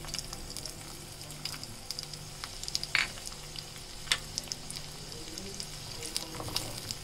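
Chopped onions frying in hot ghee in a small wok: a steady sizzle with many small crackles. A few sharper clicks come about three and four seconds in, and a wooden spatula stirs the onions near the end.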